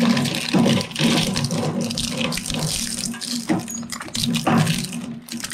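Twin-shaft shredder's cutters chewing up a pair of binoculars, with continuous, uneven crunching and cracking over the steady hum of the shredder.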